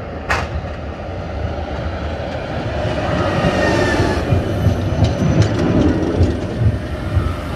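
Paris tram rolling on its rails, a steady rumble of wheels and traction that grows louder over the first few seconds. A brief faint wheel squeal comes about midway, and clicks of the wheels over rail joints follow.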